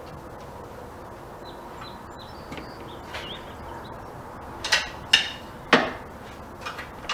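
Faint steady room hiss, then from about halfway four or five sharp knocks and clacks of the tool cart's parts being handled.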